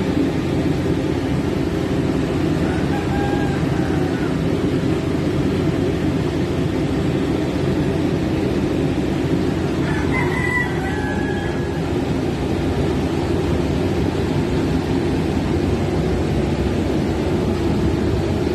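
Diesel engine of a canopied generator set running steadily with a low, even drone. A rooster crows faintly twice, about three seconds in and again about ten seconds in.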